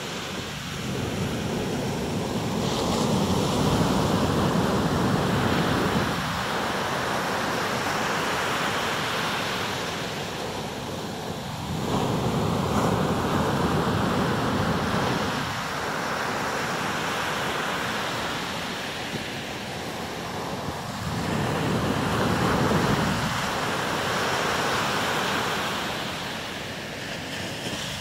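Atlantic surf breaking on a sandy beach: a continuous wash of waves that swells and ebbs every several seconds as each wave breaks and runs up the shore.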